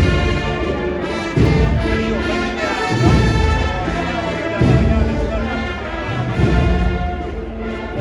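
Spanish processional brass-and-drum band (agrupación musical) playing a march: sustained brass chords over a heavy drum beat that lands about every one and a half seconds.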